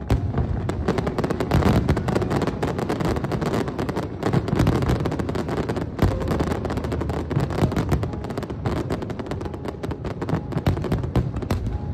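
Fireworks display: a dense barrage of aerial shells bursting, with many sharp bangs a second overlapping one another throughout.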